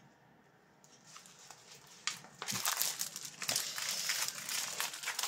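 Clear plastic packaging of diamond painting kits crinkling and rustling as it is handled, faint at first, then dense and steady from about two and a half seconds in.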